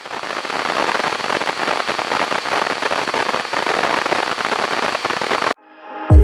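Dense, steady crackling noise that cuts off abruptly about five and a half seconds in. Electronic music with a heavy kick drum starts right at the end.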